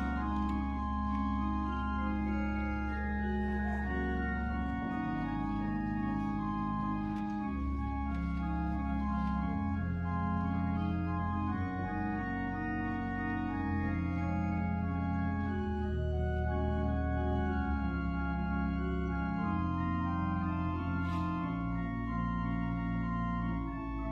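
Church organ playing slow, sustained chords over held deep bass pedal notes that change every couple of seconds.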